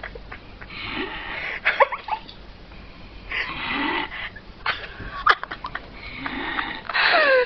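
Snoring in slow, even cycles, three snores about two and a half seconds apart; the last snore ends in a falling whistle.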